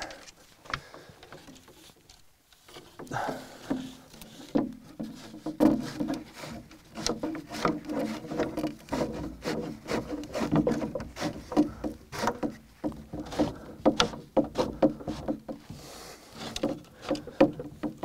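Dry branches being woven together, thick and thin sticks pushed through one another, creaking, scraping and clicking. After a quiet start it comes in from about three seconds in, with many small knocks and creaks.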